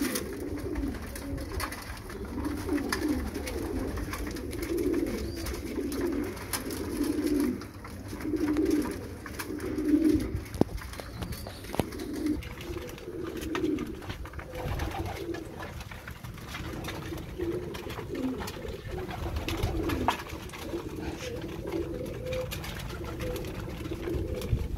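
A flock of racing pigeons cooing, low coos following one another and overlapping.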